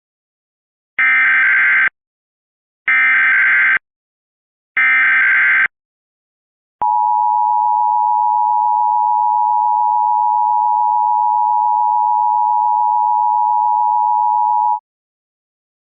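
Emergency Alert System weekly test: three one-second bursts of SAME header data tones, a harsh warbling buzz, a second apart, then the steady EAS attention tone, held for about eight seconds before it cuts off.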